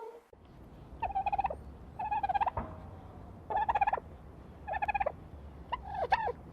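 Turkey gobbling: five short, rapid rattling gobbles, roughly a second apart.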